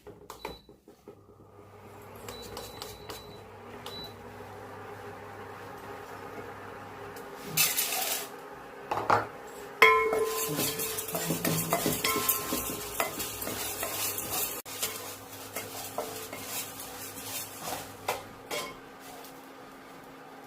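A metal spoon stirring and scraping spices around a pan as they are dry-roasted over low heat. It makes an irregular clatter of scrapes and clinks from about seven seconds in, with a few ringing metallic knocks near the middle, over a steady low hum.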